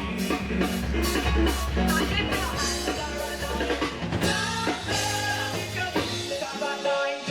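Live praise-and-worship music from a church band, with a drum kit and bass driving a steady beat under keys and some singing. The bass drops out briefly near the end.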